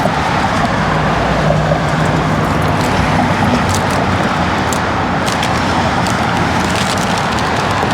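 Steady road-vehicle noise, an even rush with a faint low hum in the first few seconds and a few light clicks along the way.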